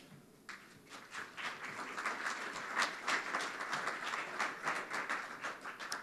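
Audience applauding: many hands clapping, starting about half a second in and dying away near the end.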